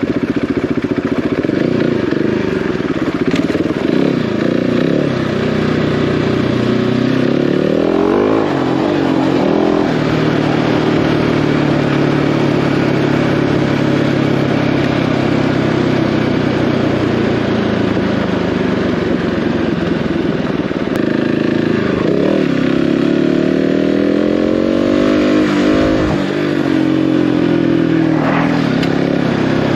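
Single-cylinder dual-sport motorcycle engine riding off-road, its revs rising and dropping a few times, with steady wind and road noise.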